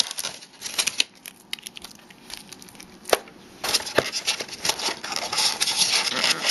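Moulded plastic packaging tray being handled, crinkling and crackling with a few sharp clicks, busier in the second half.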